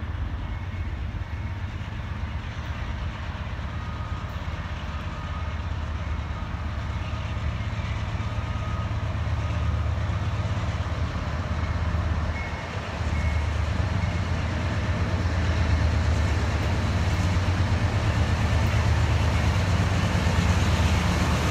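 Approaching CSX freight train's lead diesel-electric locomotives, a GE ES44AC (CSX class CM44AC) and a GE C44-9W (CW44AC), working under power, smoke at their stacks. Their deep steady engine rumble grows louder as they draw near.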